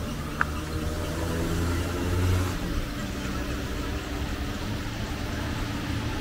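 A motor vehicle's engine running close by in street traffic, getting louder and peaking about two seconds in, then falling away, with a low hum under the rest. One short sharp click about half a second in.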